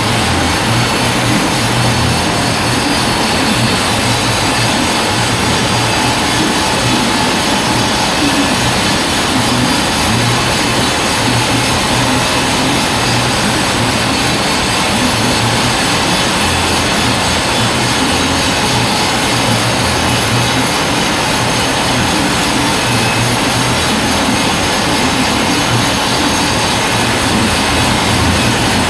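Sawmill band saw running steadily, cutting a long log into planks and frame stock.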